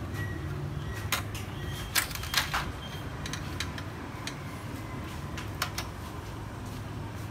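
An LED backlight strip being pried off the sheet-metal back panel of a Samsung 32F5501 LED TV, for replacement because its LEDs have dimmed. It gives a string of sharp clicks and ticks, the loudest two close together about two seconds in, over a steady low hum.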